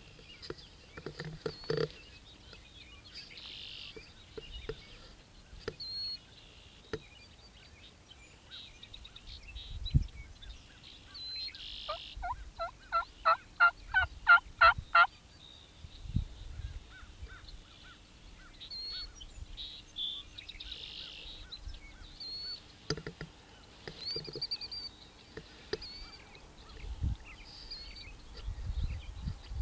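A turkey calling in a run of about ten yelps over some three seconds, growing louder, among scattered chirps of small songbirds. A few low thumps are heard as well.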